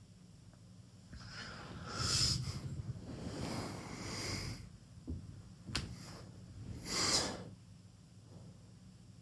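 A sleeping teenager snoring through a wide-open mouth: three loud, rough snoring breaths about two, four and seven seconds in, with a short sharp click just before the last one, over a steady low hum.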